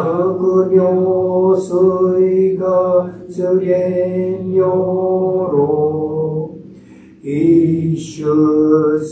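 A male priest chanting a Buddhist sutra in Japanese, on long, steady held notes, breaking for a breath about seven seconds in before going on.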